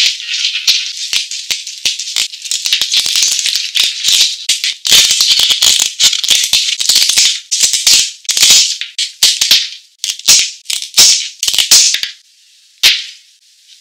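A live lobster's shell being handled and cut with kitchen shears: a dense run of crackly rattling and clicking. Heavier crunching snips come through about five seconds in. The sound thins out to a few separate clicks near the end.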